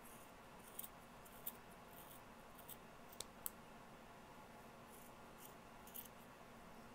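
Scissors snipping through the wrapped loops of a yarn pom-pom: a run of faint, short snips at uneven intervals against near silence.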